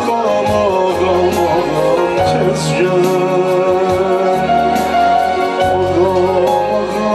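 A man singing an Islamic devotional song (ilahi) into a microphone, with long held notes, over amplified backing music with bass and percussion.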